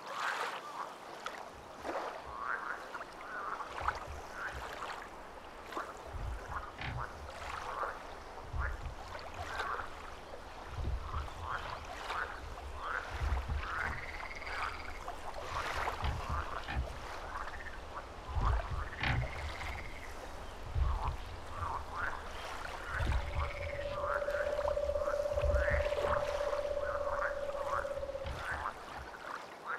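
Frogs croaking in a chorus, many short calls overlapping one another. A long steady tone is held for a few seconds in the last third.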